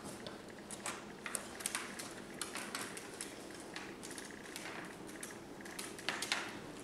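English bulldog puppies scrabbling over a plastic tray and tile floor: scattered clicks and crinkles from their claws and the tray's liner, with a few louder clusters.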